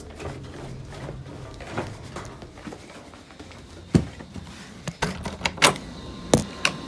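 Footsteps going down a staircase, then a run of sharp knocks and clunks from about four seconds in, as a door is handled and opened.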